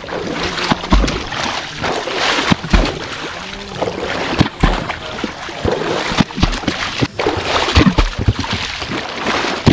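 A wooden pole beating and plunging into sea water, a heavy splashing smack about once a second with spray between strikes. This is fish-herding: the water is thrashed to scare fish into a set net.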